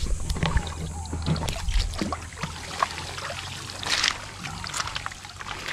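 Shallow river water sloshing and splashing in short, irregular splashes over a steady low rumble, as hands and bodies move in the water among rocks.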